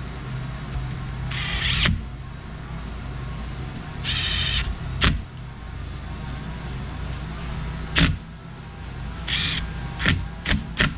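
Handling and assembly noises from an electric dump bed actuator being put back together: three short hissing whirs and several sharp clicks and knocks, the knocks coming close together near the end, over a steady low hum.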